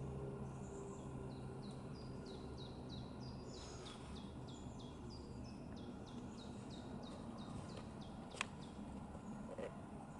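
A bird calling a long run of short, high notes, each falling in pitch, about three a second, over a low steady rumble. A single sharp tap comes about eight seconds in.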